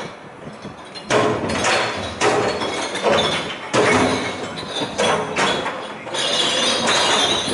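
Glass bottles and jars crashing and clinking as they are tossed by hand into the sorting compartments of a glass-collection truck: a run of sudden crashes about a second apart, starting about a second in.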